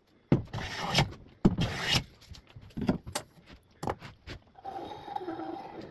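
Two long strokes of a hand plane shaving along a board edge, taking down a corner that is still high to bring the edge square. Then several light knocks and a scraping rub.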